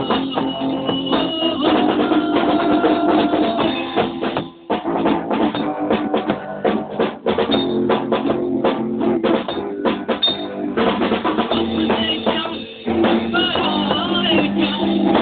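Rock band jamming an instrumental passage: drum kit and guitar playing, with no singing. The music dips briefly twice, about four and a half seconds in and again about thirteen seconds in.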